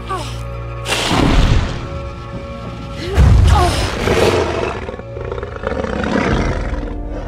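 Orchestral film score with two loud dragon roars over it, the first about a second in and the second, louder one a little after three seconds.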